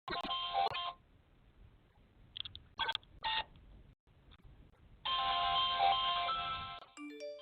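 Apartment door intercom panel calling a flat: an electronic ringing tune through the panel's small speaker, in a stretch at the start and a longer one from about five seconds in, with short bursts between. Near the end it breaks off into a quick run of short keypad beeps at different pitches as another flat number is dialled.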